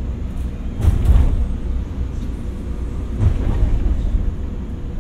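Cabin noise of a JR 115 series electric train pulling out of a station: a steady low rumble, with two louder clunks, about a second in and again just after three seconds.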